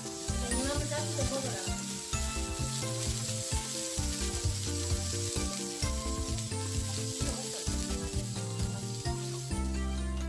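Pork belly sizzling on a grill pan over a portable gas stove, with a steady hiss of frying fat. Background music with changing notes plays throughout.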